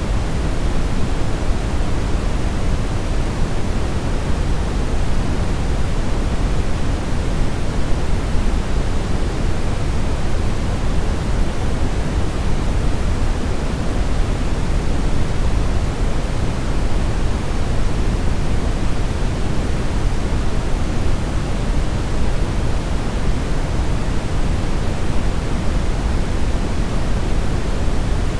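Brown noise: a steady, deep hiss with most of its weight in the low end, unchanging throughout.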